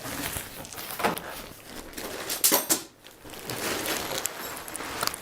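Rustling and light clicking as tent parts are unpacked and handled, with a louder burst of rustling about two and a half seconds in.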